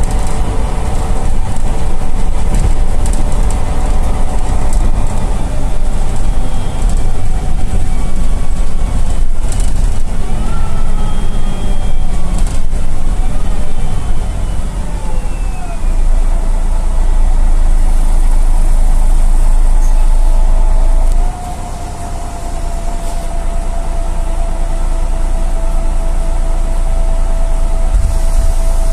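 MAN NL263 city bus heard from inside the passenger cabin, its diesel engine and drivetrain running with a heavy low rumble. Around the middle the engine note glides down. About two-thirds through the sound drops suddenly, then a steady whine holds as the bus runs on.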